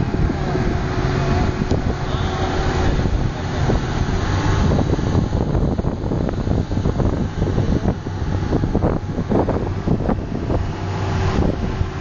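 Open speedboat running at speed across choppy water: a steady engine rumble mixed with the rush of water and its wake, and wind buffeting the microphone in uneven gusts, mostly in the second half.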